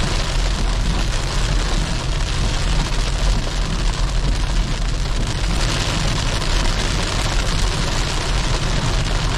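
Rain and hail hitting the windshield and roof of a moving car, heard from inside the cabin over a steady low rumble of tyres on the wet road.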